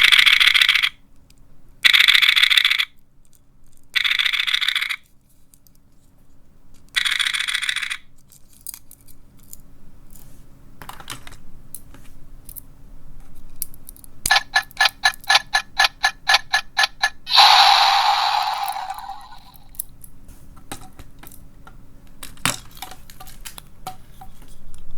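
Electronic sound effects from small capsule toys, set off one after another with small clicks: four short bursts of about a second each, later a rapid ringing pulse lasting about three seconds, then a falling whoosh.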